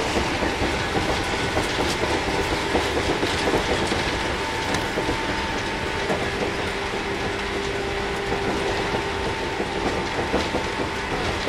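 JR 115 series 1000-subseries electric train running at speed, heard from inside the car: steady rumble of wheels on rail with clickety-clack over rail joints. Over it runs a steady hum from the MT54 traction motors and gearing.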